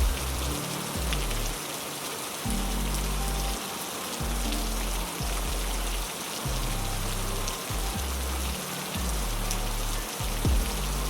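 Steady heavy rain hiss over a low, droning music bed whose deep notes change every second or two, with a sudden low thump near the start and another near the end.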